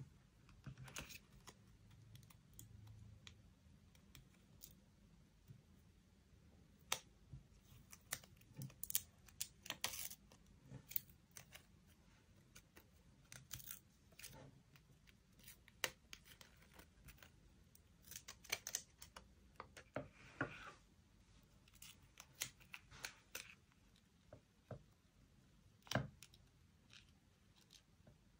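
Quiet, close-up scissors cutting paper in short, irregular snips, with light paper handling between them.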